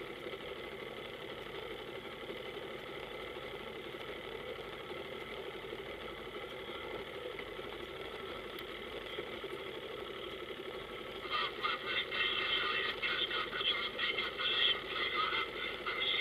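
A powerboat's engine idling steadily with a low even hum. About eleven seconds in, a choppy voice breaks in over a handheld marine radio.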